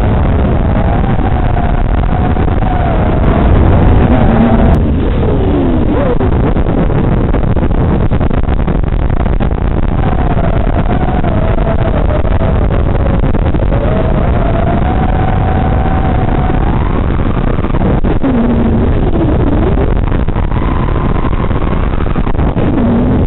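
Onboard audio from a small radio-controlled FPV aircraft: a steady rush of wind and propeller noise, with a motor whine that wanders up and down in pitch as the throttle changes. The noise swells briefly about three seconds in.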